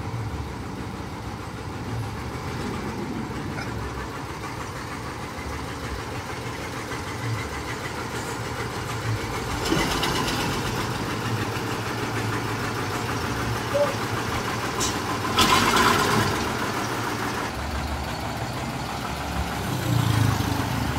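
Diesel engine of a Mitsubishi Fuso truck idling steadily, with louder rushing bursts about halfway through and again a few seconds later.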